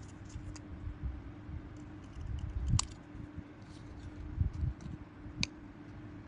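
Steel scissors snipping around a small piece of thin sheet held in the fingers. A few sharp clicks of the blades closing, the strongest about three seconds in and another near five and a half seconds, over low rumble from the hands handling the piece.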